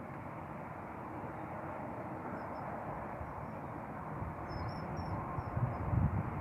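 Steady outdoor background noise with a low rumble that swells briefly near the end, and a few faint high chirps in the middle.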